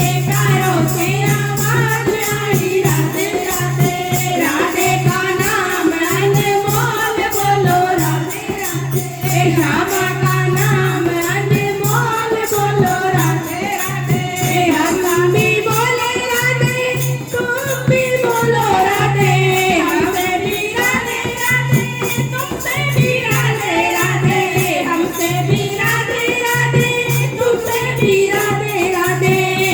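Hindi devotional bhajan: a voice singing a flowing melody over music, with a steady jingling percussion beat and a low note pulsing on and off.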